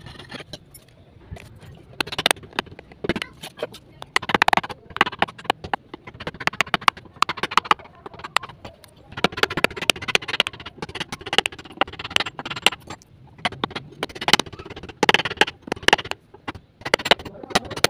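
Claw hammer knocking a wood chisel into timber: many quick, irregular sharp strikes as the chisel cuts into the wood.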